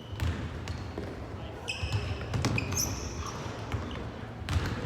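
Indoor ball game on a court: irregular ball thuds and short high shoe squeaks on the floor, over a steady low hall rumble.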